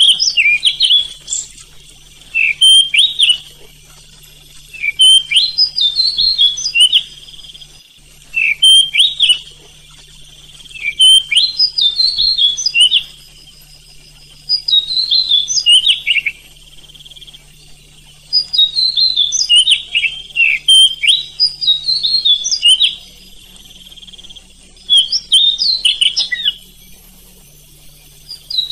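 Oriental magpie-robin (kacer) singing: about ten short bursts of quick, sweeping whistled and chattering notes, each a second or two long, with brief pauses between them, over a faint steady hum.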